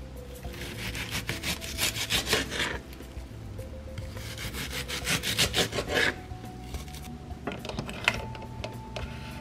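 Kitchen knife cutting on a cutting board in quick, repeated strokes: two runs of about two seconds each, then a few lighter taps near the end. Background music plays under it.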